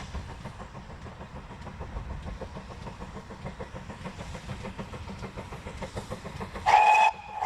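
GWR Prairie tank locomotive 5526 and its train running, a steady rumble, then two short blasts on the steam whistle near the end.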